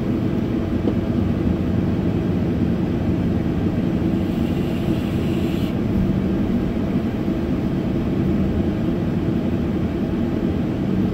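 Car driving slowly, heard from inside the cabin: a steady hum of engine and tyres on the road.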